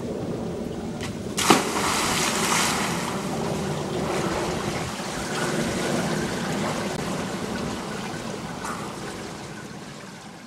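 A person jumping into a swimming pool: a sharp splash about a second and a half in, then steady splashing and sloshing of pool water as he swims, fading out near the end.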